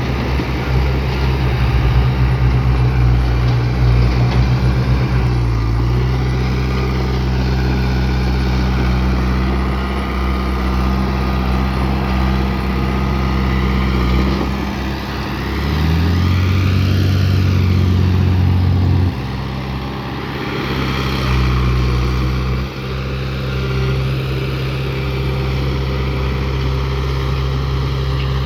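Diesel engine of heavy earthmoving equipment running. About halfway through it revs up, holds for a few seconds, then drops back abruptly.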